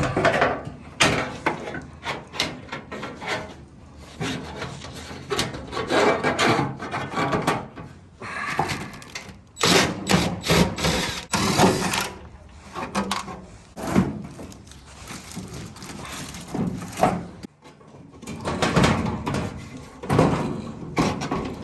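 Hyper Tough metal rolling tool box being handled during assembly: irregular knocks, clanks and scraping as its parts are moved and its drawers are slid in and out.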